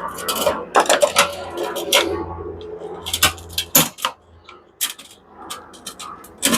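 Irregular sharp metallic clicks and clanks of hand tools and small metal parts being handled while a coffee machine is dismantled, busiest in the first few seconds and again near the end.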